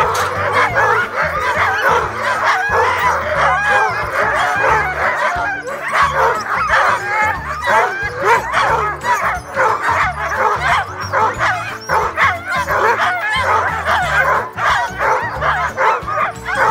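A chorus of many sled dogs yipping, barking and howling all at once, with no break. This is the excited din of a sled-dog yard as a team is hitched up for a run.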